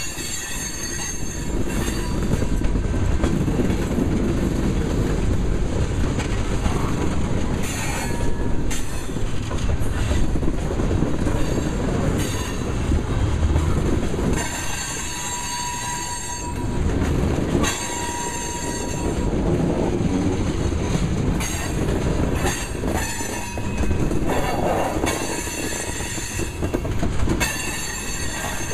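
Loaded freight-train tank cars rolling past: a steady rumble of steel wheels on rail, with high-pitched wheel squeals that come and go several times.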